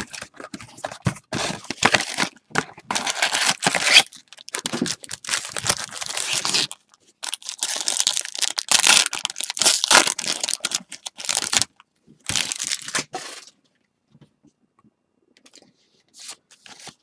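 A cardboard trading-card box is torn open and a baseball card pack wrapper is ripped and crinkled, in repeated bursts of tearing and crinkling. About thirteen seconds in it goes almost quiet, with only faint handling of the cards.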